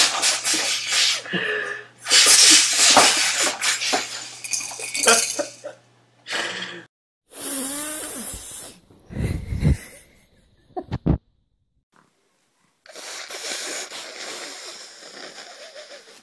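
People blowing their noses hard, a series of long, loud, noisy blows that start and stop abruptly with short gaps between them. A few short low thuds come just past the middle.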